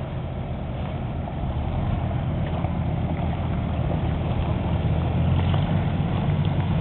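Slope Runner hillside tractor's engine running steadily, growing gradually louder.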